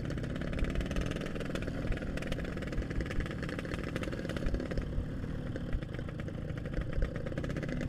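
Yamaha RX-King's two-stroke single-cylinder engine running steadily, with a fast, even exhaust beat.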